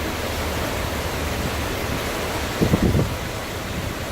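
Hurricane Irma's wind blowing hard and steadily, a dense rushing noise. About three seconds in, a gust buffets the microphone with a short low rumble.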